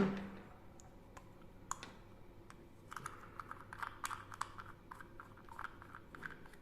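Faint, irregular light clicks and taps of a metal ball valve being picked up and handled, thickest in the second half.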